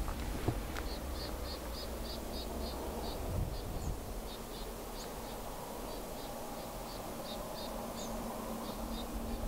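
A small bird calling a long series of short, high chirps, about three or four a second with brief pauses and an occasional higher slurred note, over a steady low rumble.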